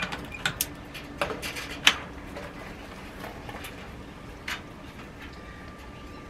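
Sharp clicks and light rattles of a power cord being handled against a rabbit hutch's wire mesh and wooden frame, thickest in the first two seconds with the loudest click near two seconds in, then one more click after four seconds. Under them a small solar-powered fan runs with a faint steady hum, and a thin steady tone comes in about five seconds in.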